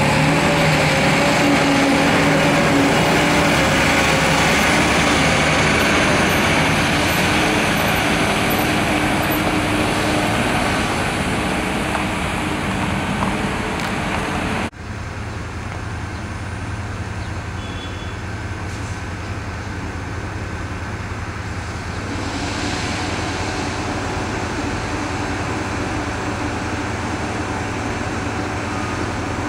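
Caterpillar wheel loader's diesel engine running as the machine drives past close by, slowly fading over the first half. After a sudden cut halfway through, a quieter, steady low engine drone from heavy diesel machinery working farther off.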